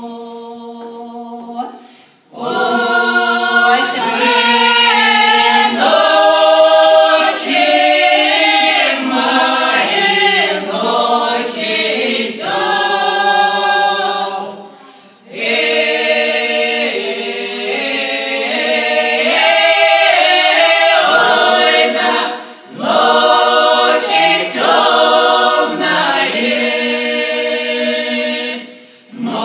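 Russian folk ensemble of women's and men's voices singing a drawn-out folk song a cappella, a woman leading the chorus. The singing goes in long phrases broken by three short pauses.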